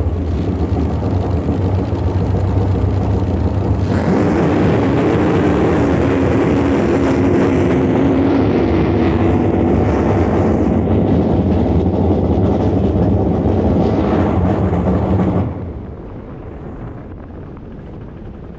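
Jet boat's 632ci big-block Chevy V8 running under throttle, heard from onboard. It gets louder about four seconds in, then falls away abruptly near the end. The engine has bogged and will not accelerate, which the driver takes for a lot of broken valve springs or a busted rod.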